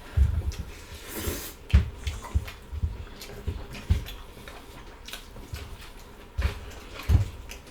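Close-up eating sounds: chewing, with irregular clicks and knocks of cutlery on dishes and a brief rustle about a second in.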